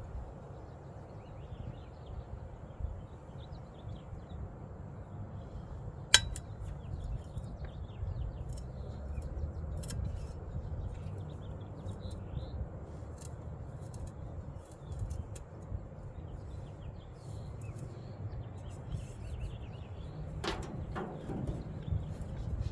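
Occasional sharp metallic clinks and taps from sheet metal being handled, over a low steady background rumble; the loudest tap comes about six seconds in.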